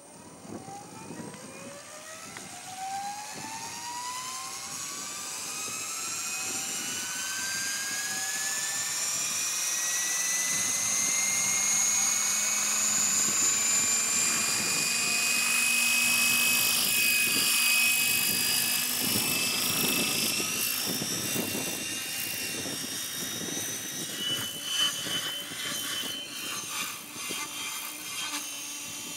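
Macrozz X7 radio-controlled model helicopter spooling up on the ground: its whine rises steadily in pitch and grows louder for about the first dozen seconds, then holds at speed. Near the end it is in flight, and the sound wavers as it moves.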